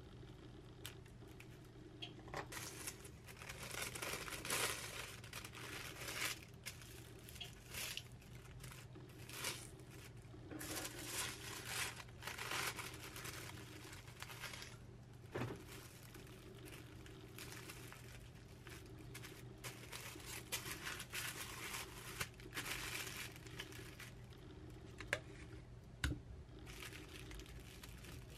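Thin printed wrapping paper rustling and crinkling as it is handled and folded, coming and going in irregular bouts, with a few sharp clicks, over a faint steady hum.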